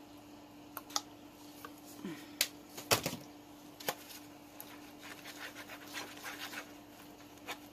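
Plastic spoon scraping and tapping against a disposable bowl while stirring liquid pigment: irregular clicks and scrapes, the sharpest about three seconds in, then a run of fainter ticks.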